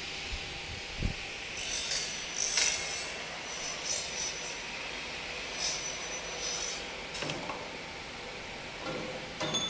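Mullion cutting saw cutting through a uPVC window profile, in several uneven bursts of cutting noise, each with a high whine.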